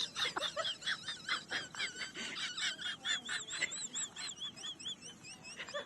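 Small birds chirping: a busy run of short, high, rapidly repeated arched notes.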